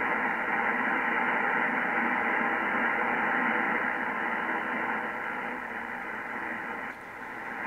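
Steady hiss of static from an Icom IC-7300 HF transceiver's speaker, tuned to 40 meters lower sideband with the attenuator and preamp off, cut off above about 3 kHz by the receive filter. It is electrical interference that the operator puts down to nearby power lines, and it buries the weak station he is trying to hear.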